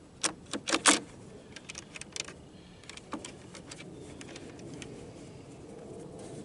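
Side cover of a Greenworks 60V cordless chainsaw being fitted back over the bar and chain: a quick cluster of sharp clicks and knocks in the first second, then a few lighter clicks about two to three seconds in.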